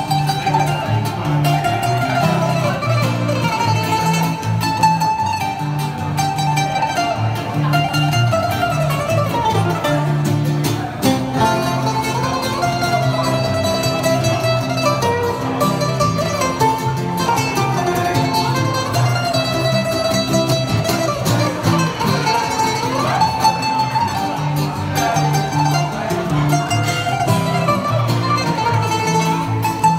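Greek bouzouki playing an instrumental melody, accompanied by an acoustic guitar strumming chords underneath.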